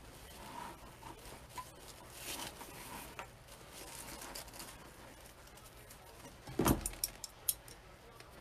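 Ribbon and deco mesh rustling softly as they are handled, then a single thump about two-thirds of the way in and a few quick sharp clicks as scissors are picked up to cut ribbon.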